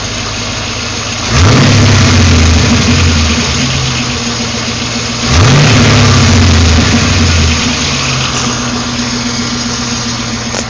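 GM LS1 5.7-litre V8 idling and revved twice, about a second in and again about five seconds in; each rev climbs quickly, holds for a couple of seconds, then falls back to idle. The owner says this engine makes a weird noise.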